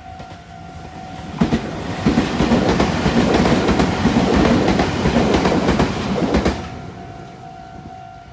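A Meitetsu Inuyama Line train passing close by over a level crossing, its wheels clattering over the rails, loud for about five seconds. The crossing's electronic warning bell rings steadily before the train arrives and again after it has gone, drowned out while the train passes.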